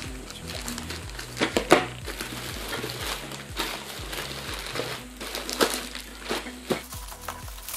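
Plastic courier mailer and bubble wrap crinkling and rustling in irregular bursts as the package is torn open and the wrapped box pulled out, loudest twice, about a second and a half in and near six seconds in. Background music runs underneath.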